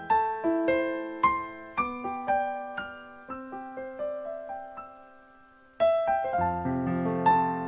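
Background music: a gentle piano melody of single struck notes that fade away, thinning out to almost nothing about five seconds in, then coming back with fuller chords.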